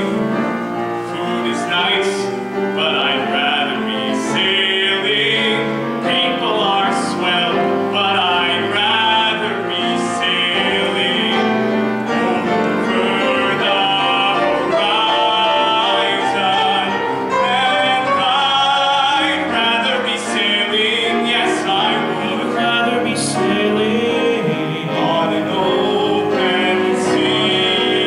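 A man singing a musical-theatre ballad into a handheld microphone, with piano accompaniment.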